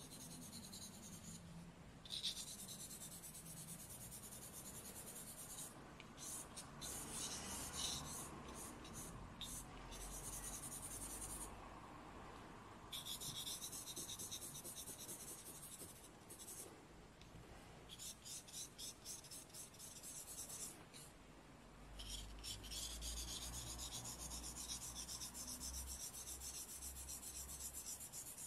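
Charcoal stick scratching across drawing paper while shading, a faint dry hiss. Long runs of steady hatching alternate with stretches of short, quick strokes.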